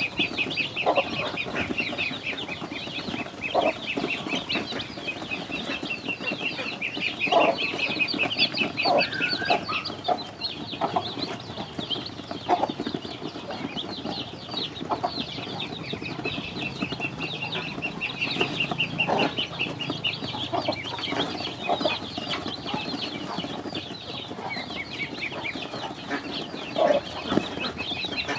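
A brood of ducklings and chicks peeping continuously in rapid, high chirps while they feed, with scattered short, lower notes through it.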